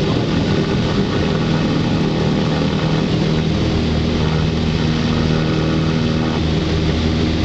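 Cessna 172's piston engine and propeller running at take-off power, heard from inside the cabin as a loud, steady drone during the take-off roll.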